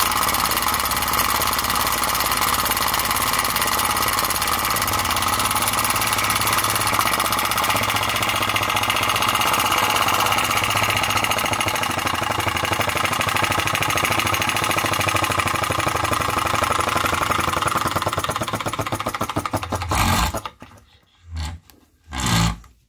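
Enjomor flame-licker vacuum engine running steadily and fast on a methylated-spirit burner flame, a continuous rapid mechanical clatter. The sound stops abruptly about twenty seconds in, followed by a couple of faint bumps.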